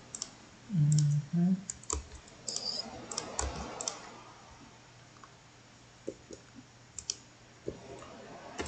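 Sharp, scattered single clicks of a computer mouse and keyboard. About a second in comes a brief low murmur from a person's voice, the loudest sound here.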